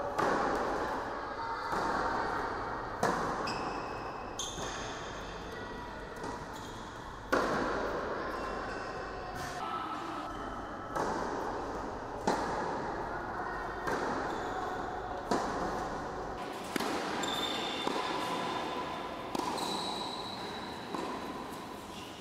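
Tennis balls struck by rackets in a rally, a sharp pop every one and a half to three seconds, each echoing around a large indoor sports hall.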